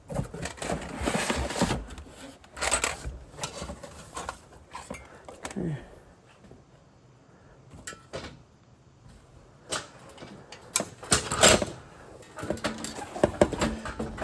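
Irregular clunks, knocks and rustles of plastic and metal engine parts being handled as the air intake is refitted to a 6.7 L Power Stroke diesel. The handling pauses for a few seconds in the middle, then grows louder near the end.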